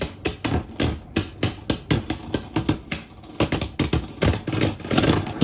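Two Beyblade Burst tops, Divine Belial and Burst Spriggan, spinning against each other in a plastic stadium. Their collisions make a rapid, uneven run of sharp clacks and knocks, several a second.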